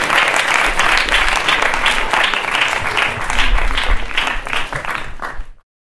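Audience applauding. The clapping thins toward the end so that single claps stand out, then cuts off abruptly.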